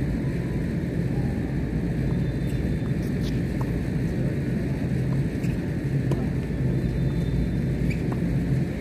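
Steady low rumble with a hum, over which a few faint, sharp pops of tennis rackets striking the ball come during a doubles rally.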